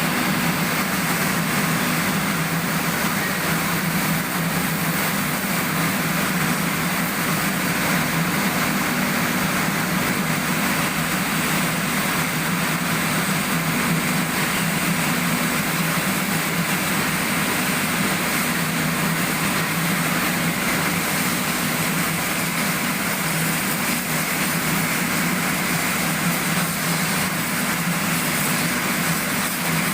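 Steady machinery noise: a low drone under a constant hiss, with no change in level.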